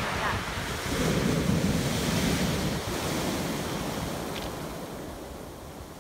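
Sea waves breaking and washing over a pebble beach, with wind buffeting the microphone. The surf swells about a second in, then gradually fades as the wave draws back.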